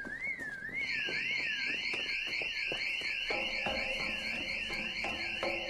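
Building intruder alarm going off: an electronic siren warbling up and down about two and a half times a second, joined about a second in by a second, higher-pitched siren sweeping rapidly over and over.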